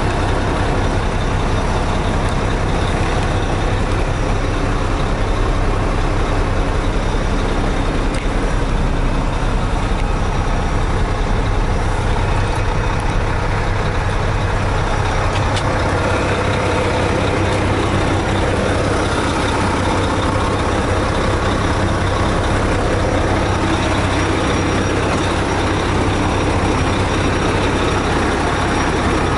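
Diesel engine of a 2015 Mack dump truck idling steadily, heard from inside the cab.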